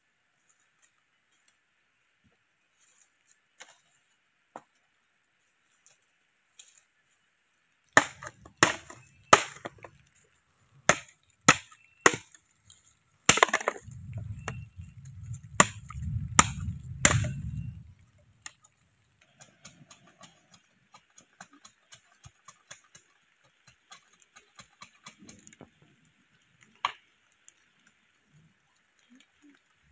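Machete chopping: about ten sharp strikes over some ten seconds, with a low rumble under the last few. Faint scattered ticks come before and after.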